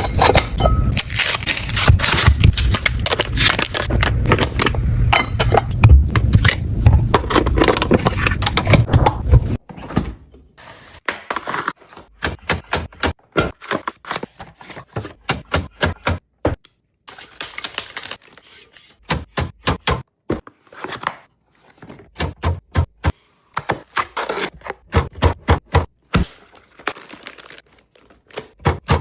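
Containers and packages being handled and set down while a fridge is restocked: a dense clatter and rustle for the first nine seconds or so, then separate clicks and knocks, some in quick runs.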